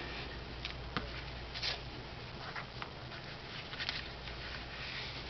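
A few light rustles and taps of cardstock being handled and slid about on a work table, over the steady hum of a room air conditioner.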